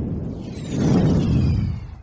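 Tail of an explosion sound effect: a deep rumble dies down, swells again about a second in with faint falling whistles high above it, then fades out near the end.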